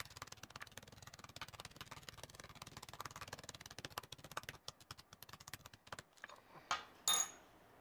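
Metal meat mallet rapidly tapping chicken breast through a plastic bag on a wooden cutting board, flattening the fillets. The tapping thins out about four and a half seconds in, and a couple of louder knocks follow near the end.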